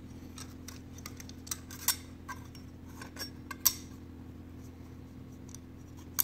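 Metal grinder parts clinking and clicking as a steel locking ring is handled and seated on the cast grinder housing: a string of irregular sharp clinks in the first four seconds, two of them louder, then only faint handling, over a steady low hum.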